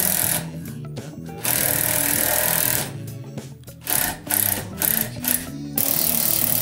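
Car jack being run up under the front of a van: a rapid mechanical rattling in runs, first a long run, then several short bursts in quick succession, then another long run near the end. Background music plays underneath.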